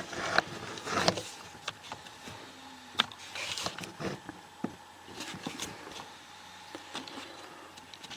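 Scattered light clicks and taps of hands handling the lock and its setup, with a short rustle about three and a half seconds in.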